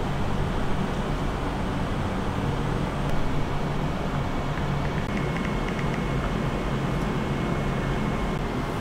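Steady low rumble of distant city traffic, with a few faint light ticks around the middle.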